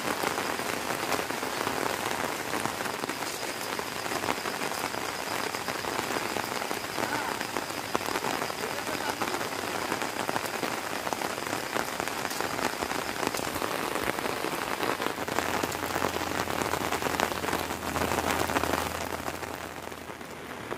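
Steady rain falling, a dense hiss of countless drop hits, easing slightly near the end.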